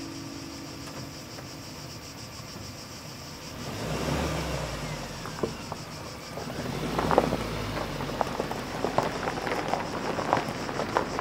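Suzuki Jimny's four-cylinder petrol engine running and pulling away, its tyres crackling over loose gravel, over a steady chirring of insects.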